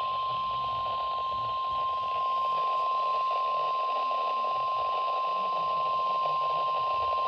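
NOAA Weather Radio warning alarm tone: a single steady 1050 Hz beep held unbroken over radio static. It signals that a warning, here a severe thunderstorm warning, is about to be read.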